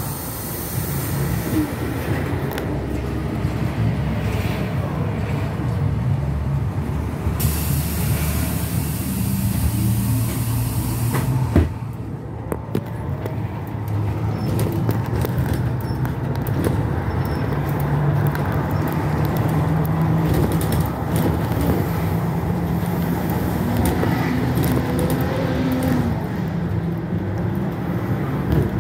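Inside a trolleybus as it pulls away from a stop and drives on: steady rumble of the running vehicle with faint humming tones from its electric drive. A single sharp knock comes about twelve seconds in.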